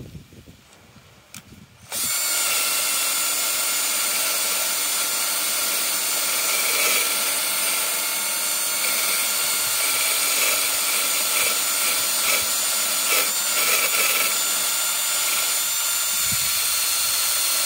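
Cordless 18 V Wilko drill spinning a wire brush at high speed against a metal coolant fitting, scrubbing off old gasket material. It starts about two seconds in and runs steadily, a motor whine mixed with the scratching of the bristles.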